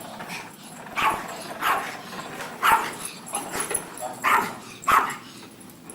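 A dog giving a series of short barks and yips, about six in all, spaced well under a second to a second apart.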